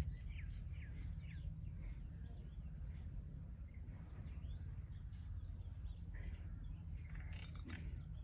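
Several small birds chirping, short quick downward chirps overlapping throughout, with a busier, louder flurry of calls near the end, over a steady low background rumble.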